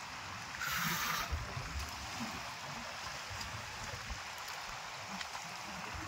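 Small wind-driven waves lapping and splashing against the rocky shore of a reservoir, with wind buffeting the microphone as a low rumble. There is a brief louder hiss about a second in.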